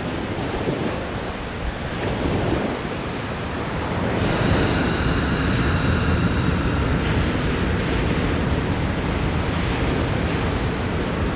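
Ocean surf: waves breaking and washing in, a steady deep rushing with wind.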